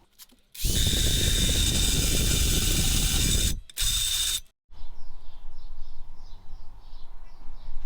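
Electric drill spinning a die-grinder burr against an aluminium alloy wheel, grinding out cracks ready for welding, heard as sped-up time-lapse sound. A steady grinding hiss with a high whine runs for about three seconds and cuts off suddenly, comes back in a short burst, then gives way to a quieter rattling.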